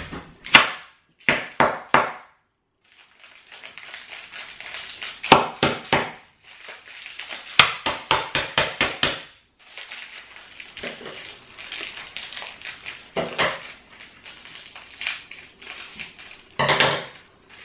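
Hard banana Turkish taffy bar in its wrapper smacked against a hard surface to crack it: sharp knocks in quick groups, with the wrapper crinkling between them.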